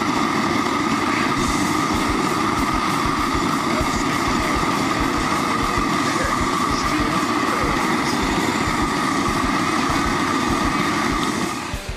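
Propane jet burner running at full flame under a stockpot: a loud, steady rushing hiss that cuts off sharply near the end.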